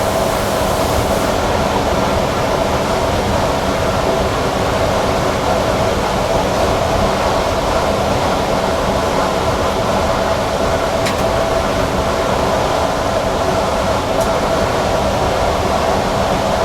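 Newag Impuls EN63 electric multiple unit running at a steady speed, heard from the driver's cab: a continuous rumble of wheels on rail under a steady electric whine. There are two faint ticks, one about two-thirds through and one near the end.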